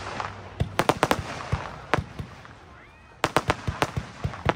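Consumer firework battery (cake) firing: sharp shots in quick groups, several about a second in and more after three seconds, with a hiss after the first group.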